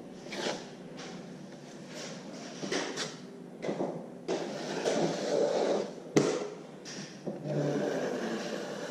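Irregular scraping strokes of a jointing knife spreading cornice cement over plasterboard, with a sharp knock about six seconds in.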